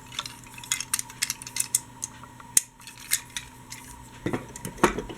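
Die-cast metal toy trains being handled, clicking and clinking against each other and the surface they are set on, with a few louder knocks near the end.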